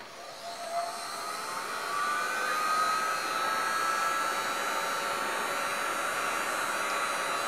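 Electric heat gun switched on and running, its fan spinning up over the first two seconds to a steady blowing whir with a thin high whine, as it fuses encaustic wax on a board.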